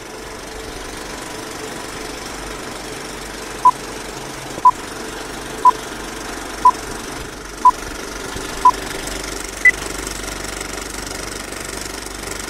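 Steady hiss with a series of short electronic beeps, one a second: six at the same pitch, then a seventh higher one, like a countdown or test-tone leader.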